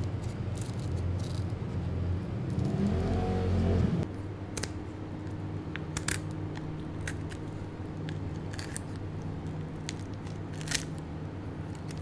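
Kitchen shears snipping along the backbone of a butterflied catfish, a few sharp clicks spread over the second half, over a steady low hum that drops in level about four seconds in.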